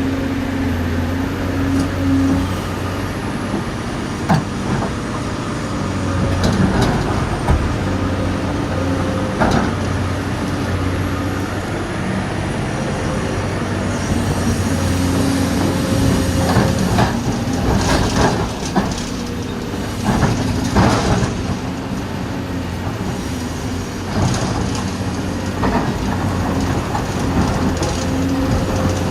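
Dubbed recording of a full-size excavator's diesel engine running steadily, with a steady hum that rises and falls slightly under load. Sharp clanks and clatters come every few seconds, and several come in quick succession in the middle.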